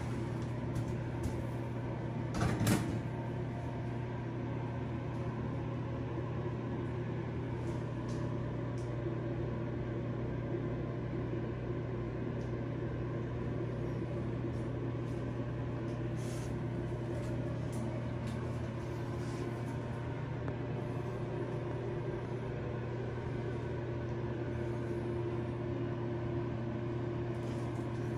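Steady low mechanical hum, with a brief louder knock about two and a half seconds in and a few faint ticks.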